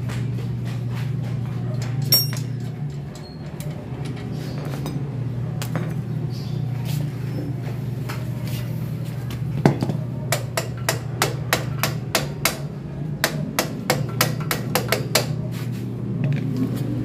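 Metal tool knocking on metal parts during rear-wheel removal on a motorcycle: scattered sharp clicks at first, then a quick run of taps at about four a second from about ten seconds in until just past fifteen, over a steady low hum.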